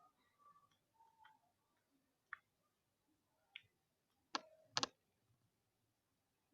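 Slime being squeezed and kneaded by hand, giving a few scattered faint clicks and pops, the loudest a close pair about four and a half seconds in.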